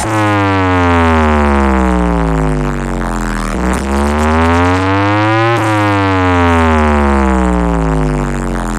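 A loud electronic siren-like tone played through a large DJ speaker stack of four bass and four mid boxes. Its pitch sweeps slowly down, rises again about three and a half seconds in, and sweeps down once more from about five and a half seconds.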